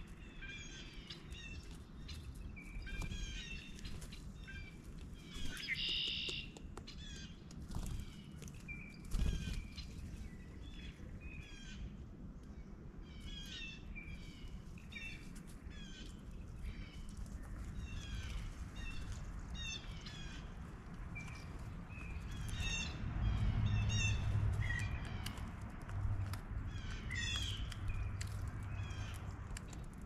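Blue jays calling: many short calls throughout, with a louder, harsher call about six seconds in. A low rumble rises under the calls in the last third.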